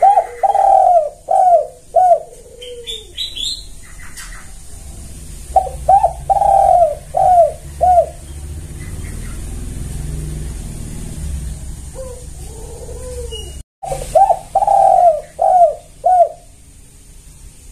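Spotted dove cooing: three phrases, each a low opening note followed by a quick run of louder coos (a short one, a long drawn one, then two or three short ones). A few brief high chirps come between the first and second phrase.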